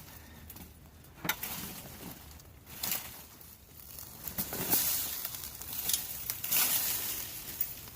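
Irregular rustling and crunching in several short bursts, about five over a few seconds.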